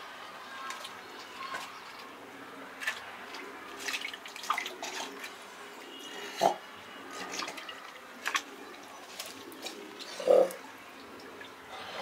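Water dripping from a large fish in a cormorant's beak onto a wet plastic bucket lid: scattered drips and small splashes, with two louder plops about six and a half and ten seconds in.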